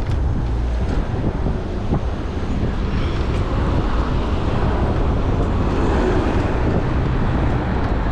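Steady wind rush on the microphone of a moving e-bike, mixed with road noise.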